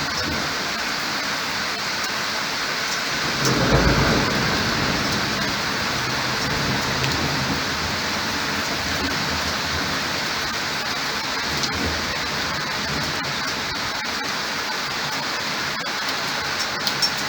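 Thunderstorm: steady heavy rain, with a roll of thunder swelling about three and a half seconds in, the loudest moment, then settling back into the rain. A few sharp ticks near the end.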